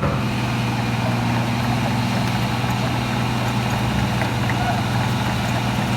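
Wirtgen W1000F cold planer's diesel engine idling steadily.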